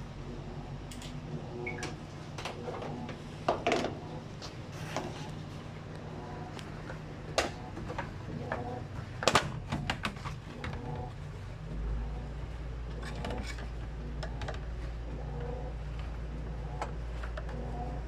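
Scattered clicks and knocks from handling the opened washing machine's casing and parts, over a steady low hum. A deeper hum sets in about two-thirds of the way through.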